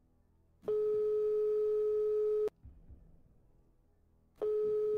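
Telephone ringback tone as an outgoing call rings on the other end, waiting to be answered. It is a steady beep at one pitch lasting about two seconds, a pause of about two seconds, then the beep again near the end.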